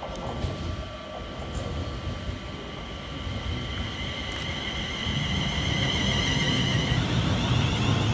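Class 350 Desiro electric multiple unit pulling into the station, its rumble growing louder as it nears, with a high steady whine over it and a few clicks early on.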